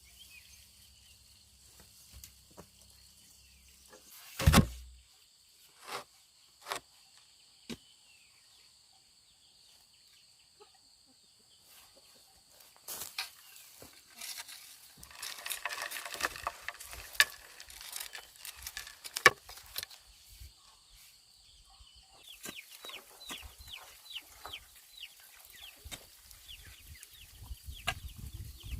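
Bird calls with many rapid, falling high chirps over the last several seconds, over a steady high insect drone. There are also several sharp knocks, the loudest about four and a half seconds in.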